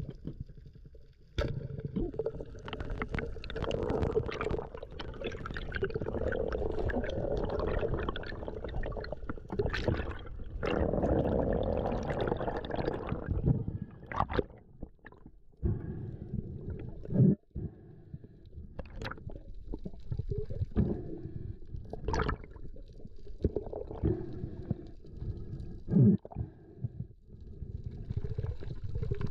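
Muffled water noise picked up by a GoPro in its waterproof housing: rushing and gurgling with swells that rise and fall, and scattered knocks and taps.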